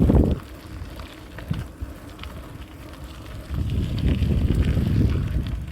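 Wind buffeting the microphone in gusts, rumbling and low-pitched. It is strong right at the start, drops back, then rises again from about halfway through to near the end.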